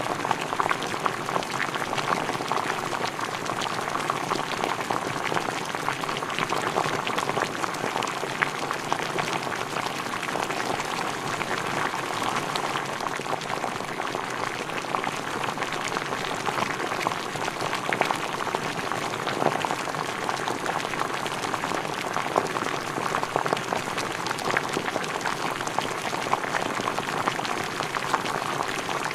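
Food boiling in a pot: a steady dense bubbling with many small pops.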